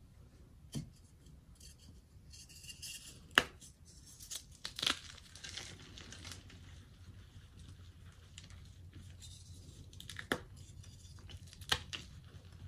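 Chunks of dyed chalk crushed and crumbled in a bare hand, gritty crunching as they break into powder, with a handful of sharp snaps, the loudest about three and a half seconds in.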